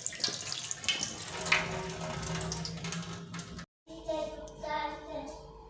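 Water running and splashing in a sink, with small knocks, cut off for a moment about two-thirds of the way in.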